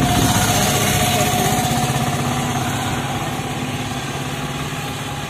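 A vehicle engine idling with a steady hum, loud at first and slowly fading.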